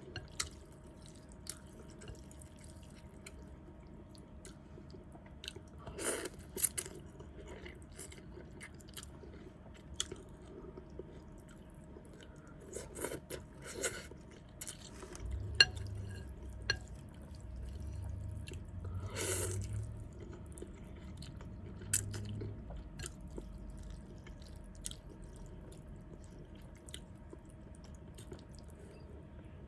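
Close-miked eating of noodle soup: chewing with many small wet mouth clicks and a few longer slurps.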